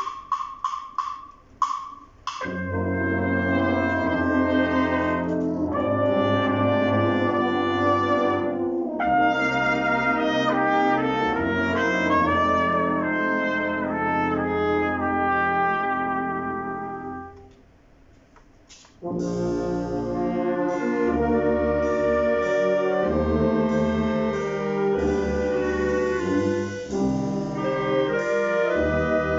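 Wind band of brass and clarinets playing film music: short detached chords at the start, then full sustained playing. Near the middle the band drops almost to silence for about a second and a half, then comes back in.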